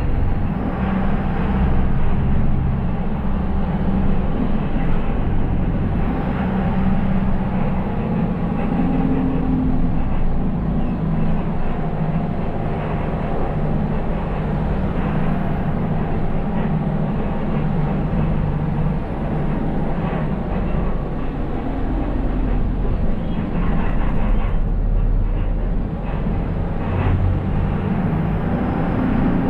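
City bus driving, heard from the driver's cab: a steady engine rumble with road and tyre noise, the engine note shifting in pitch now and then.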